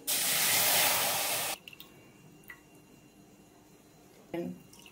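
Milk pouring from a glass bowl into a pan, a splashing rush of liquid that cuts off sharply about a second and a half in. A short soft knock near the end.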